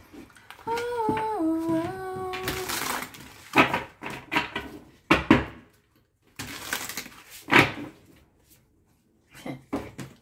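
A woman hums a short tune for about two seconds. Then comes a run of sharp rustling snaps: tarot cards being shuffled and handled.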